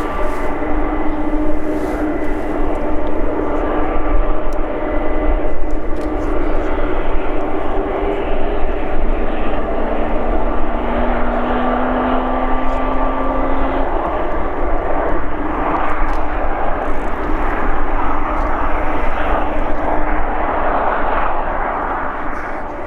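Jet engines of a Boeing 747-400 freighter running nearby: a steady whine made of several held tones over a broad rush. The rush grows louder in the second half and drops off near the end.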